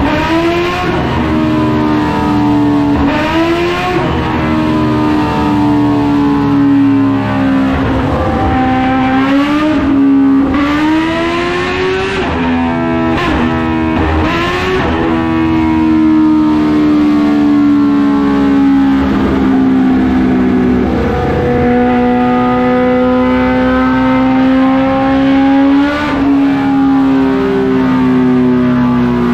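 Kawasaki Ninja H2's supercharged inline-four running on a rear-wheel dyno through a Vandemon full titanium exhaust. Its pitch drifts slowly up and down, with several quick sharp revs in the first half.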